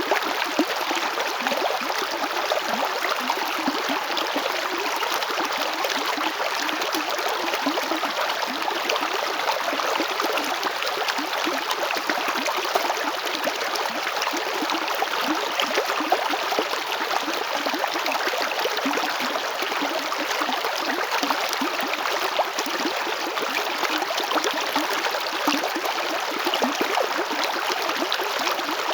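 A river flowing over rocks: a steady rush of water with constant small splashes and gurgles.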